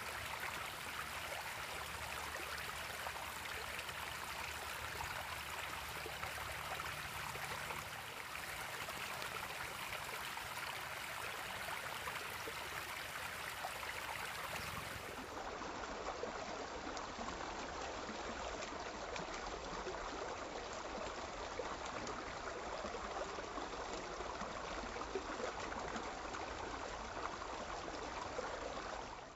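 Water running steadily over the rocks of a small disappearing (pondless) backyard waterfall, an even trickle and splash.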